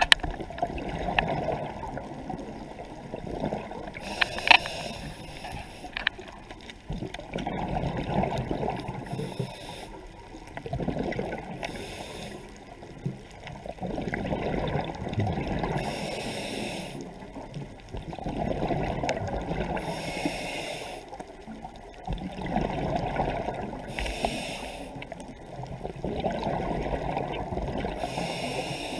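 Underwater scuba breathing on a regulator: a rhythmic cycle of a short high hiss and a longer bubbling rush of exhaled air, repeating about every four seconds.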